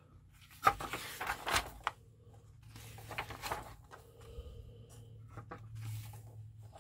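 Paper instruction booklet pages being turned and handled, in several bursts of rustling and crackling, the sharpest just under a second in.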